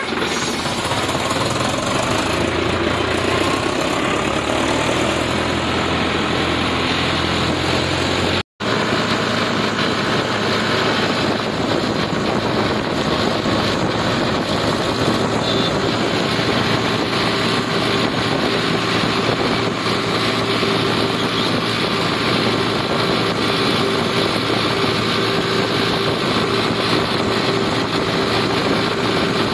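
Farmtrac 6055 PowerMaxx tractor's diesel engine running steadily while the tractor drives along the road, heard from the driver's seat. The sound cuts out for an instant about eight seconds in.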